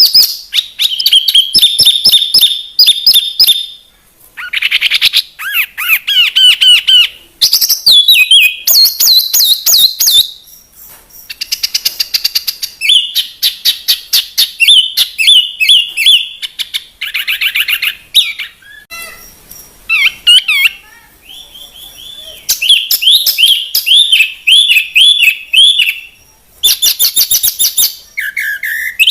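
Songbird song in a string of varied phrases: fast trills, runs of repeated sharp chirps and gliding whistled notes, in bursts of a second or two with short pauses between.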